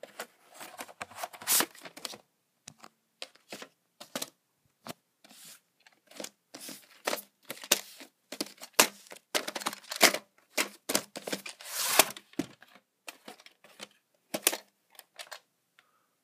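Plastic VHS cassettes and their cardboard sleeves being handled and turned over: irregular clicks and clacks of plastic with short scraping and rustling sounds.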